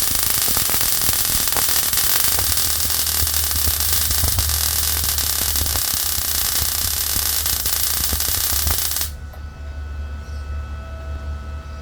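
Arccaptain MIG 200 MIG welder arc crackling and hissing steadily as it lays a bead around a steel exhaust pipe. The arc cuts off suddenly about nine seconds in, and a low hum carries on.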